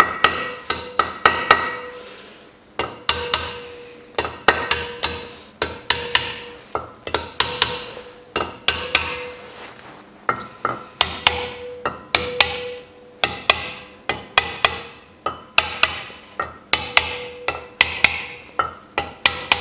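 Small hammer lightly tapping the valve stem tops of a Toyota 3S-FE cylinder head, metal on metal, to seat the valve keepers (collets) and make sure none sits crooked. Sharp taps come a few a second in short runs, each with a little ringing, with a brief pause about two seconds in.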